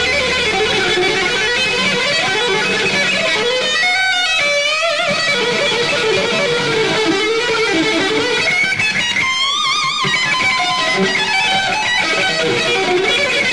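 Distorted electric guitar from a white Stratocaster-style guitar, played live in a solo of fast note runs, with wide vibrato on held high notes about four seconds in and again near ten seconds.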